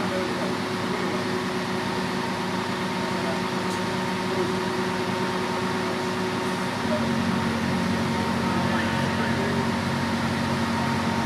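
Fire engine's diesel engine running steadily at the scene, powering the raised aerial ladder and pump. About seven seconds in, its note changes and grows slightly louder.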